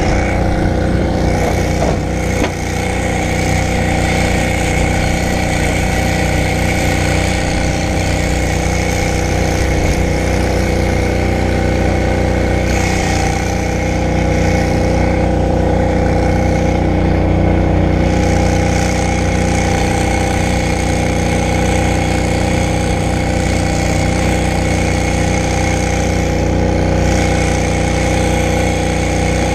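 Brush fire truck's engine running with a steady, even note, heard close from a camera mounted on the truck.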